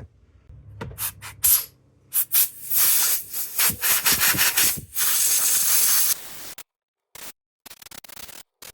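Compressed-air blowgun at high pressure blowing out a small chainsaw carburetor. First come short hissing blasts, then longer bursts of hiss that cut off about six and a half seconds in, followed by a few brief puffs near the end.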